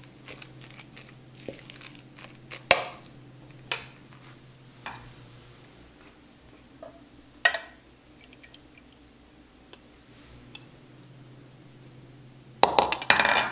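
Kitchen handling sounds: a few scattered knocks and clinks of utensils and bowl, then near the end a quick, louder burst of clattering as metal tongs and a pan come down over a wooden cutting board to lift out a boiled chicken breast.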